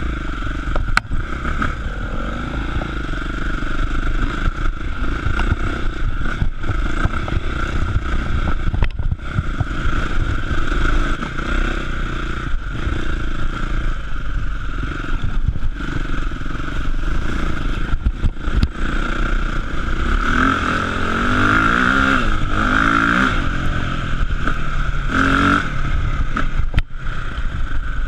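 Enduro dirt bike engine running under the rider, heard close up as he rides a forest trail, with scattered knocks and rattles from the bike over rough ground. About two-thirds of the way through, the revs rise and fall several times.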